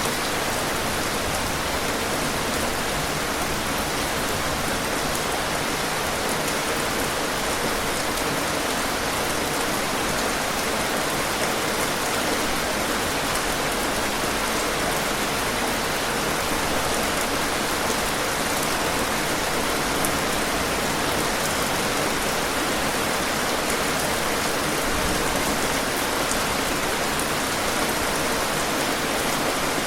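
Steady rain falling on a surface, an even hiss with scattered raindrop ticks.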